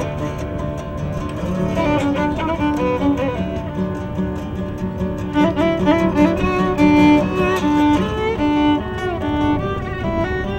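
Violin playing a melody of held notes over a strummed acoustic guitar.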